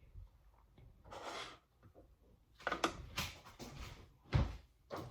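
Kitchen handling noises: a short rustle, a cluster of light clicks and knocks, and one dull thud near the end.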